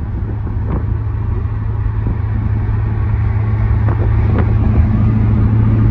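BMW E34 540i's V8 and road noise heard inside the moving car's cabin: a steady low drone that grows gradually louder, with a higher hum joining about four and a half seconds in.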